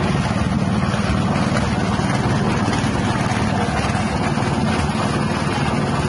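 Small 6.5 HP petrol engine driving a grass-chopping machine, running steadily at an even speed.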